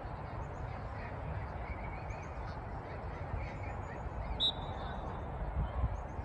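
Wind buffeting the microphone in uneven gusts over an outdoor field, with faint distant shouts and scattered high chirps. A short high-pitched tone sounds about four and a half seconds in.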